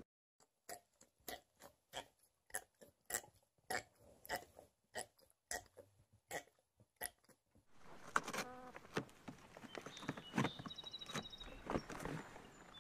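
A golden retriever gnawing a bone: sharp crunching clicks, about three a second, with quiet between them. About eight seconds in it gives way to a noisier stretch of scuffling with a short animal call.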